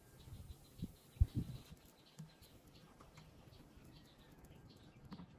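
Faint handling sounds from working glue and foam onto a plastic chair foot: a few soft knocks about a second in, then light scattered ticks and scratches.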